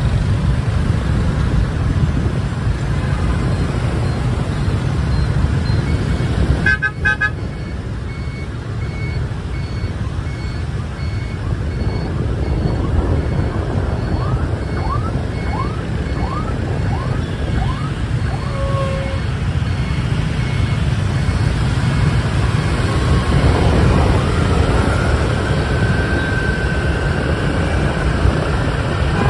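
Dense scooter and car traffic heard from a moving motorbike: a steady low rumble of engines and road noise, with short horn toots. An evenly repeating beep runs through the middle.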